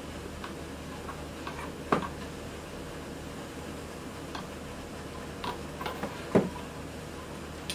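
Small scattered clicks and ticks of a screwdriver working at the screws of a balsa RC airplane fuselage's hatch, with two sharper clicks, about two seconds in and about six seconds in.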